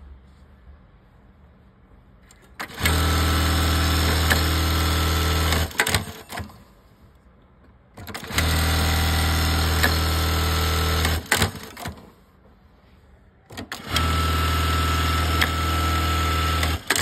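High-speed industrial lockstitch sewing machine running in three separate runs of about three seconds each, a steady hum with a few sharp clicks, each run starting and stopping abruptly.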